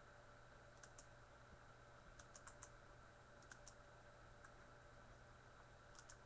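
Faint computer mouse clicks, mostly in quick pairs and short runs of three or four, over a low steady hum.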